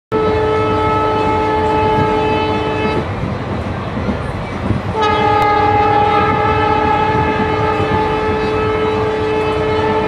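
Railway locomotive horn sounding a steady single-pitched note in two long blasts: one of about three seconds, then after a two-second break a longer one starting about five seconds in. The rumble and clatter of the moving train runs beneath and fills the gap.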